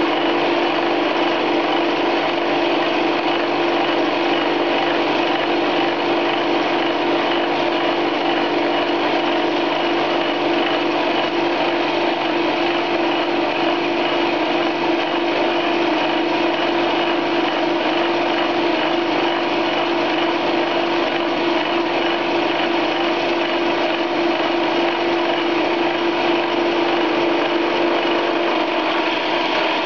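Chinese 10 x 18 metal lathe running at 1400 RPM, its homemade two-tipped indexable carbide fly cutter taking a milling cut in metal. The result is a loud, unchanging machining noise: a steady hum with a hiss of cutting over it.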